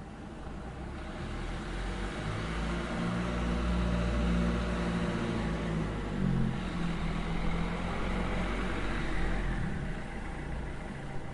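A motor vehicle drives past: engine hum and tyre noise grow louder over a few seconds, peak near the middle, then fade away.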